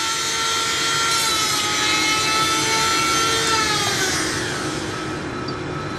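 Handheld rotary tool with a cutting disc grinding into an ancient human bone to cut out a sample: a steady high whine with a rasping hiss. The pitch sags a little as the disc bites and slides lower about four seconds in.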